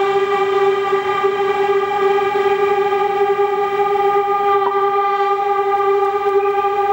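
Trumpet holding one long, steady note, bright with overtones.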